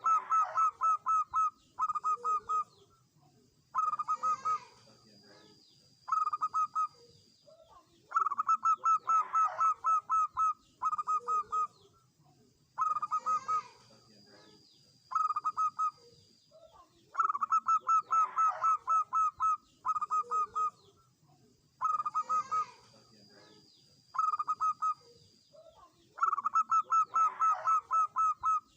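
Zebra dove (perkutut) cooing: phrases of quick, evenly repeated staccato coos, one about every two seconds, with a longer phrase every few seconds.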